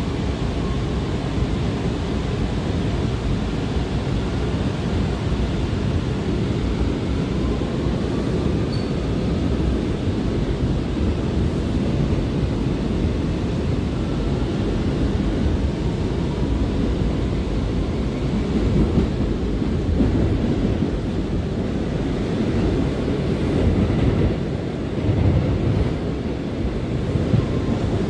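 R179 subway car running at speed, heard from inside the car: a steady low rumble of wheels on the rails, with a few louder jolts in the last third.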